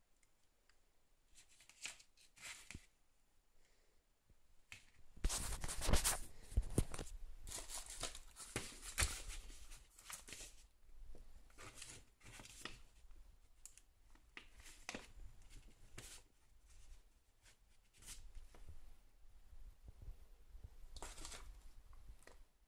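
Handling noise: cables and plastic DC connectors moved about and dragged over a paper-covered workbench, giving irregular rustles and clicks. It is sparse at first, busiest and loudest a few seconds in, then scattered.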